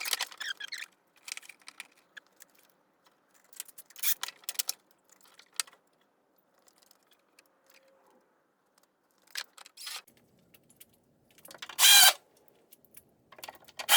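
Small metal hardware and tools being handled: scattered short metallic clicks and rattles, typical of steel U-nuts being clipped onto panel edges. The loudest clatter comes about twelve seconds in.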